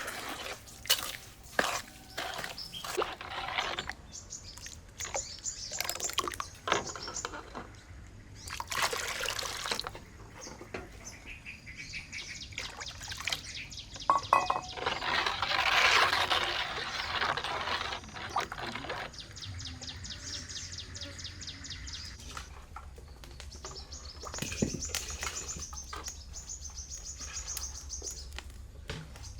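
Kitchen handling sounds: scattered knocks and clatter, then a few seconds of water pouring or splashing. Birds chirp rapidly near the end.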